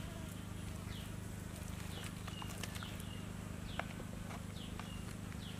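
Hands handling a raw fish and sticky jackfruit pulp, with a few short clicks and one sharper click a little past the middle. Underneath runs a steady low hum, and a short falling chirp repeats about once a second.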